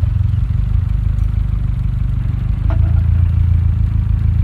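Honda Civic EK engine idling steadily just after starting, getting a little louder a bit past halfway.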